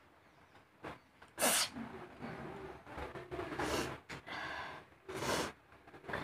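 A woman sneezing three times, about two seconds apart, the first sneeze the loudest, with gasping breaths between. The sneezes are set off by the sharp pungency of green chilli.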